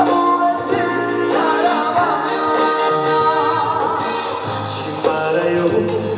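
Trot song performed live: a man singing with vibrato over a band backing track.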